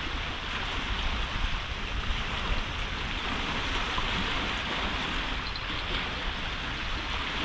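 Steady rushing noise of wind and river waves at the shore, even throughout with no distinct events.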